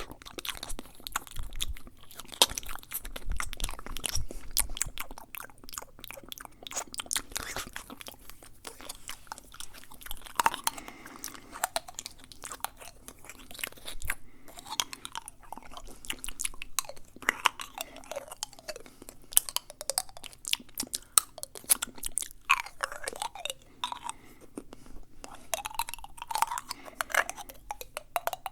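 Fast, close-miked ASMR mouth sounds: wet clicks, smacks and tongue sounds in quick, irregular succession, with short sliding mouth noises among them in the second half.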